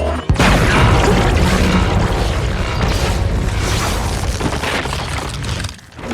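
Designed film sound effect for the Obsidian Fury Jaeger (giant robot): a sudden heavy boom about a third of a second in, followed by several seconds of dense, rumbling crash noise that eases off near the end.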